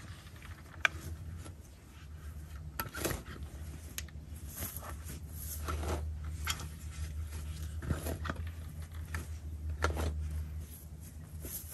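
A long-handled garden tool scraping and rustling through dry grass and soil in irregular short strokes, over a steady low rumble.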